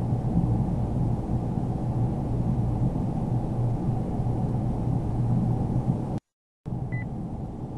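Steady low background rumble and hum with no distinct events. It cuts out completely for about half a second near the end, where the recording is spliced, then resumes.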